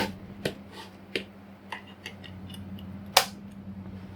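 Plastic clicks and knocks of a mains plug being pushed into and pulled out of power outlets while each socket is tested: a sharp click at the start, a few lighter ones, then another sharp click about three seconds in. A steady fan whirr hums underneath.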